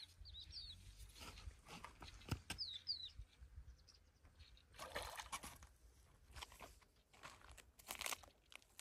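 Near silence with a small bird chirping a few times, and two brief rustles of handling noise about five and eight seconds in.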